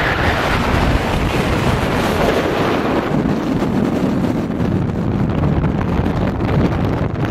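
Storm-force wind blowing hard across the camera's microphone: a loud, steady rumbling noise that doesn't let up.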